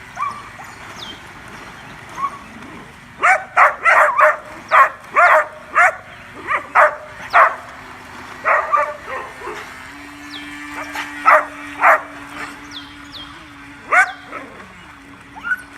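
Dog barking: a rapid flurry of about ten sharp barks starting about three seconds in, then scattered single barks. A steady low hum runs under the second half.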